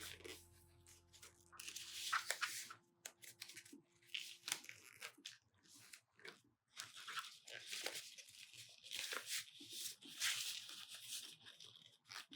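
Paper and card being handled close up: irregular rustling, crinkling and scraping strokes with short pauses between them.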